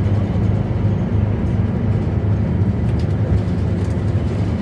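Scania K94UB city bus under way, heard from inside the passenger cabin: its rear-mounted 9-litre diesel engine gives a steady low drone over road and body noise.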